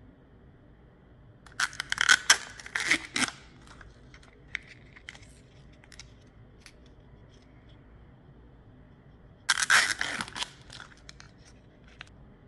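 Small toy packaging being torn open and crinkled in two short bursts, about two seconds in and again near ten seconds in, with a few light clicks and ticks of handling between them.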